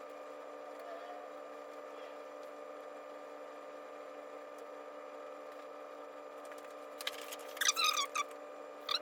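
Steady hum with several fixed tones, from the workbench equipment, with a burst of rapid clicking and tapping about seven seconds in and again at the very end.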